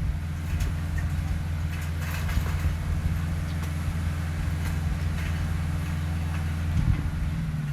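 Heavy diesel engine of earthmoving machinery running steadily, with a few faint clicks or clanks over it. Near the end the engine note changes and drops slightly.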